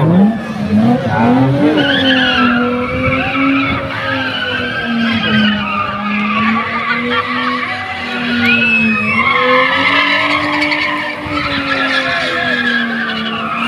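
BMW E30 spinning in tight circles: the engine is held at high revs, its note wavering slightly, over continuous squealing of the spinning rear tyres.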